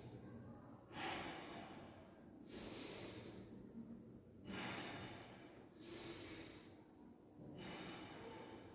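A person breathing slowly and audibly in and out, faint, about five soft breaths each lasting roughly a second, while holding a yoga posture with the neck dropped back to tone the throat against snoring.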